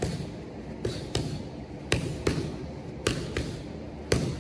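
One-two punch combinations landing on boxing focus mitts: sharp smacks in quick pairs about once a second, three pairs with another hit starting near the end.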